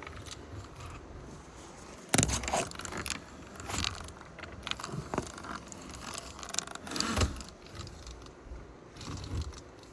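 A run of irregular clicks, knocks and scrapes from objects being handled, starting about two seconds in and loudest near the start of the run and again about seven seconds in.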